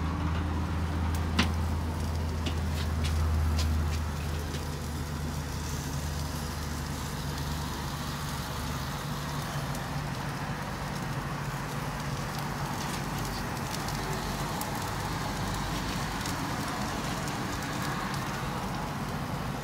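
Glazed salmon and other food sizzling on a barrel grill's grate, a steady crackling hiss, with a low hum underneath that stops about nine seconds in and a few light clicks near the start.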